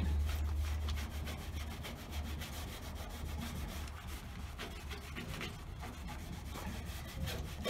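A cloth pad rubbed quickly back and forth by hand on a pickup truck's painted metal door, in a rapid, even swishing rhythm. It is polishing oxidized, chalky paint with a liquid paint cleaner.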